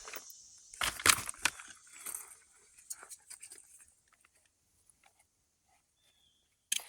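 Bag being taken off and handled, with rustling and a metallic jangle in a few short bursts over the first three seconds, then fading to near silence.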